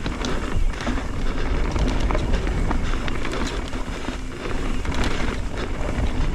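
Mountain bike rolling fast down a rough, rocky trail: a constant rush of tyre noise with many small, irregular knocks and rattles from the bike, over a low rumble of wind on the microphone.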